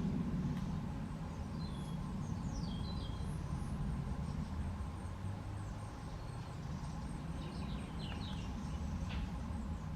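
Garden birds chirping in short, downward-sliding phrases, in two spells a few seconds apart, over a steady low rumble.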